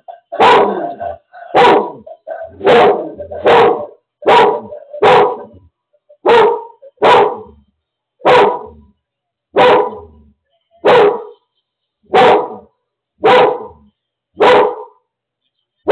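Seizure alert dog barking over and over in a steady run of single loud barks, about one a second, alerting to its owner's seizure.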